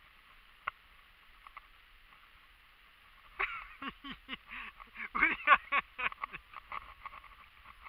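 People laughing in short, choppy bursts, starting about three and a half seconds in after a quiet stretch with a single click.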